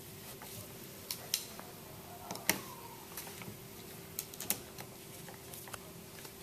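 Irregular light metallic clicks and taps as the head screws of a CheckPoint LPX pump are installed and lightly tightened down, the sharpest click about two and a half seconds in, over a faint steady hum.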